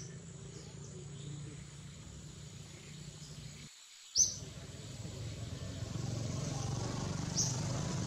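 Outdoor ambience: a steady low rumble, with a short high chirp about four seconds in and another near the end. The sound drops out for a moment just before the first chirp.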